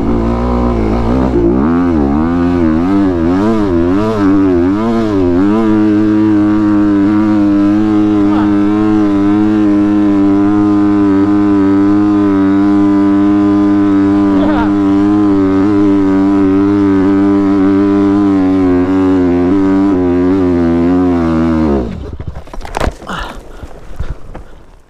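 Four-stroke Honda CRF250RX dirt bike engine on a steep hill climb: the revs rise and fall for the first few seconds, then hold steady at high revs under load. Near the end the engine note cuts off suddenly, followed by a few clattering knocks.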